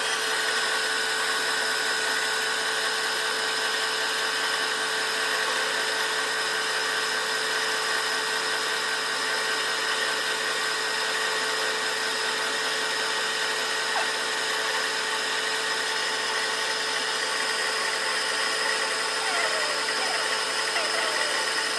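Power machine tool running steadily with a constant whine, metal being worked in a machine shop.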